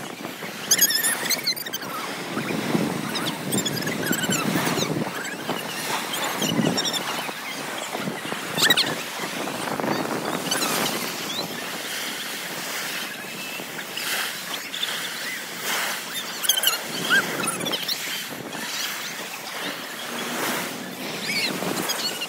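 Small sea waves breaking and washing up a sandy beach in repeated surges, with wind buffeting the microphone.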